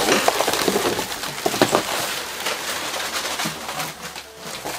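Packing material rustling and crinkling in a dense run of crackles as it is pulled off a boxed airsoft rifle.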